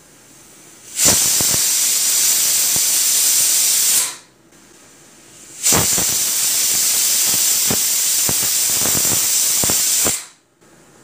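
Stovetop pressure cooker whistling twice: steam jets out past the weight valve in two loud hisses, the first about three seconds long and the second about four and a half, with a few clicks among them. These are the two whistles that mark the cooking as done.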